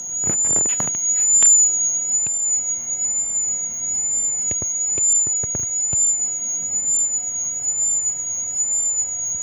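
Piezo-speaker ultrasonic dog-bark deterrent emitting a loud, steady high-pitched tone that wavers slightly and evenly in pitch, at pitch setting 1. A few faint clicks sound during the first two seconds and around the middle.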